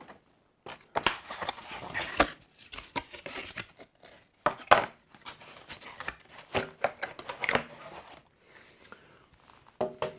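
Cardboard packaging and plastic toy parts being handled: irregular scrapes, knocks and rustles as pieces are pulled from the cardboard box tray and set down.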